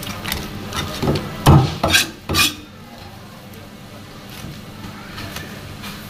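Meat cleaver knocking against a thick plastic cutting board while a fish is cleaned: four or five quick knocks in the first half, the loudest about a second and a half in, then only a low steady hum.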